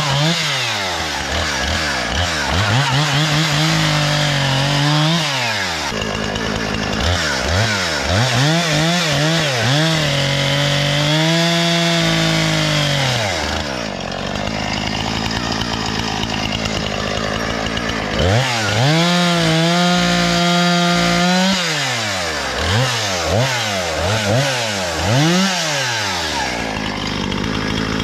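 Husqvarna 460 Rancher 60cc two-stroke chainsaw cutting poplar: it is run up and held at full throttle for several seconds at a time, then let back to idle, with a few quick throttle blips between cuts near the end. The engine runs strong and clean.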